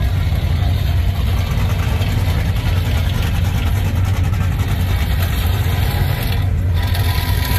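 Truck engines running steadily at idle, a continuous deep rumble.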